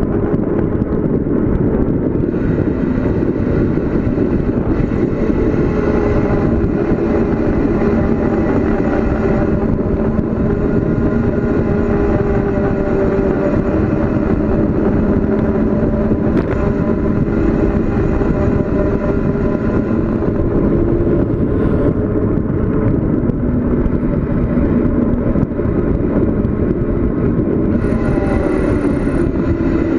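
Steady rush of wind and road noise from a bicycle descending at speed, with a faint hum that slowly rises and falls in pitch.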